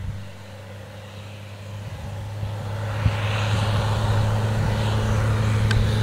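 Case IH tractor engine running with a steady low hum as it pulls a loaded grain trailer across stubble, getting louder from about two seconds in as it comes closer, with a rising rush of tyres and trailer.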